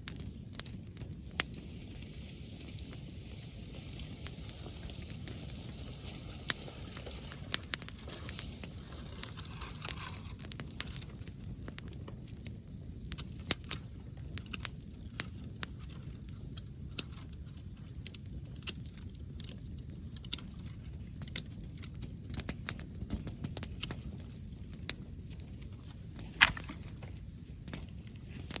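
Wood bonfire crackling, with irregular sharp pops throughout and one louder pop near the end, over a steady low background rush.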